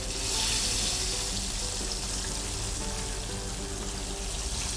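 Chicken deep-frying in hot oil in a wok, a steady hissing sizzle that swells for about the first second, with background music underneath.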